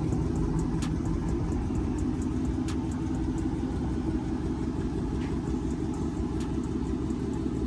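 Dodge Charger Scat Pack's 392 (6.4-litre) Hemi V8 idling with a steady low rumble, with a few light clicks.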